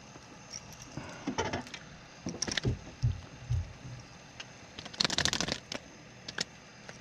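Hooked crappie splashing and flapping at the water's surface as it is pulled up beside the boat, with a few dull knocks and a short, louder rattling splash about five seconds in.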